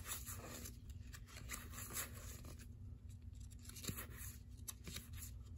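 Baseball cards being thumbed quickly through a stack by hand: faint, quick papery scrapes and flicks of card sliding against card.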